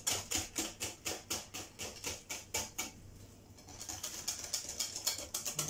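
Wire whisk beating crêpe batter in a glass bowl: a rhythmic run of clattering strokes of the wires against the bowl, about four or five a second, that pauses briefly about three seconds in and then resumes faster.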